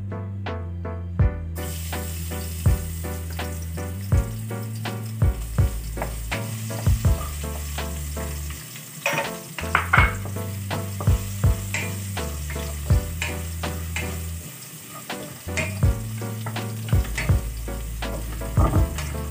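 Food sizzling as it fries in oil in a wok, with a spatula stirring and scraping against the pan; the stirring clatters louder around nine to ten seconds in and again near the end. Background music plays underneath.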